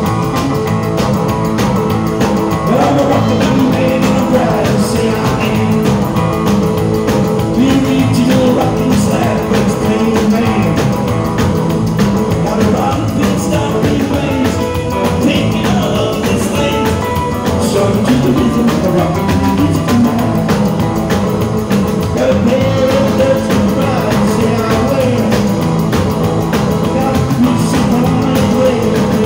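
Live rock and roll band playing, with electric guitar and a wavering lead melody line over the band.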